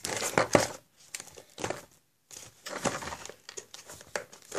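A small toy box being opened by hand: crinkling and rustling of the packaging in short irregular bursts, with a brief pause about two seconds in.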